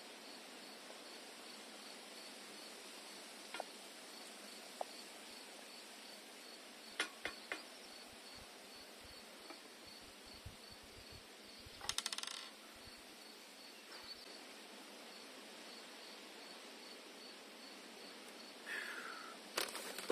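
Steady outdoor hiss with insects chirping in a faint, evenly pulsed high tone, and a few scattered light clicks and clinks, with a brief rattle of them about two thirds of the way through.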